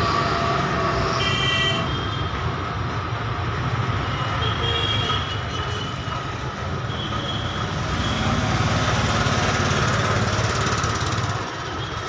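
Steady rumble of road traffic, with three short horn toots about one, four and a half, and seven seconds in.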